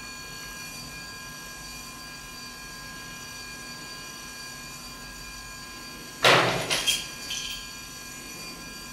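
A low steady hum, then a sudden loud scraping rattle about six seconds in, lasting about a second.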